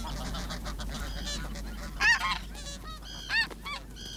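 Geese honking: a series of short, repeated honks from several birds, two of them louder, midway and again later on.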